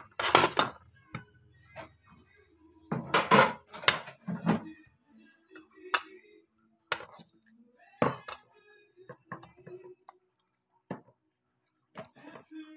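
A fork knocking and scraping against a metal pot as pieces of cooked chicken are turned over and moved about, in irregular clinks with a dense cluster a few seconds in.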